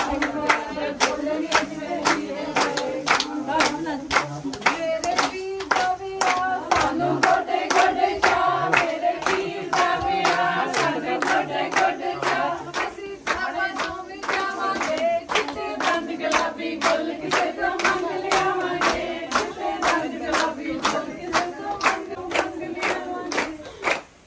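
A group of women singing Punjabi boliyan in unison for gidha, kept in time by everyone clapping together at about two claps a second.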